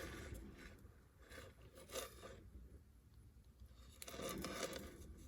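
Faint rubbing and scraping of small jewelry-making tools being handled while working a jump ring, in a few short spells, with a longer bout of scraping about four seconds in.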